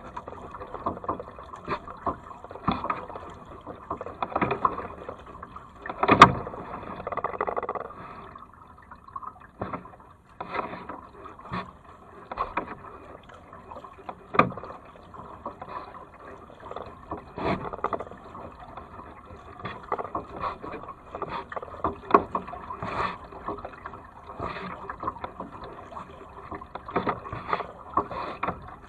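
Double-bladed kayak paddle working the water in alternating strokes, each blade catch and splash coming roughly once a second. A sharp knock about six seconds in is the loudest sound, with a smaller one a little past halfway.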